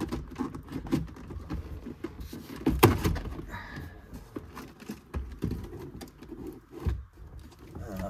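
Alfa Romeo Alfetta's plastic instrument cluster cover being worked loose and pulled off the dashboard by hand: a run of clicks and knocks, with one loud clunk about three seconds in.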